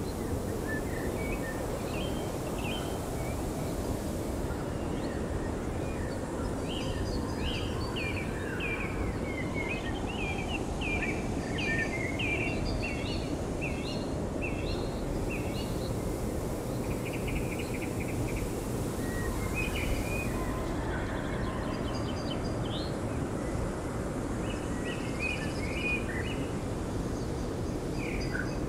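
Small birds chirping in quick runs of short, high notes, several times over, above a steady low rush of outdoor noise.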